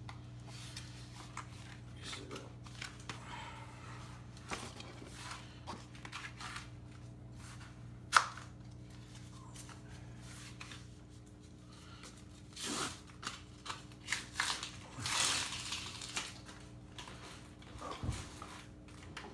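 Rustling, scraping and handling noises with scattered clicks, including one sharp click about eight seconds in. Under them runs a faint steady hum that fades out about two-thirds of the way through.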